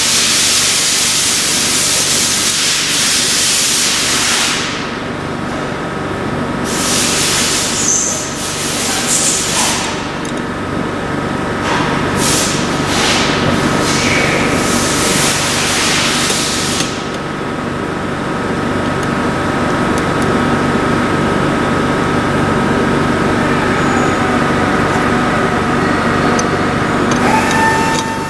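Portable valve grinding machine running with a steady hum and whine, overlaid by loud hissing that stops about four seconds in and returns in bursts between roughly six and seventeen seconds.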